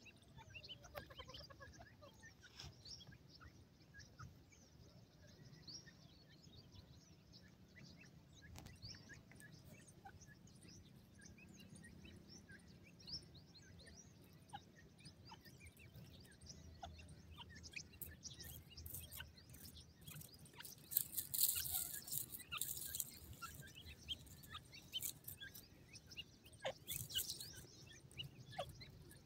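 Grey francolin chicks peeping, many short high chirps scattered throughout. Louder rustling and scratching in dry grass and sand comes about two-thirds of the way through and again near the end.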